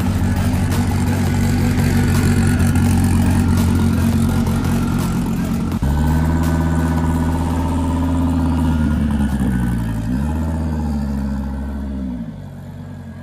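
Twin-turbo 8.4-litre V10 of a 2014 Dodge Viper running at a steady idle, then about six seconds in switching abruptly to a new steady note as the car rolls off at low speed. Near ten seconds the pitch dips briefly and comes back, and the engine fades near the end as the car drives away.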